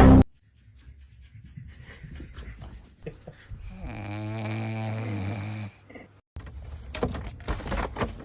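A dog making one long, low, wavering snore-like sound that lasts about two seconds, beginning about four seconds in. Several sharp knocks follow near the end.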